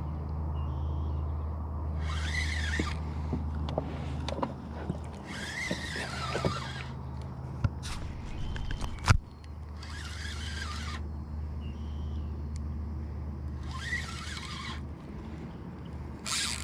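Spinning reel cranked in short bursts about every four seconds, each a second of whirring with a wavering whine, over a steady low hum, with light clicks and one sharp knock about nine seconds in.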